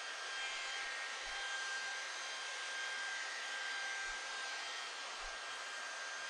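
Electric drill or rotary polisher running steadily at constant speed with a thin, steady whine, spinning a foam cutting pad to polish a plastic headlight lens.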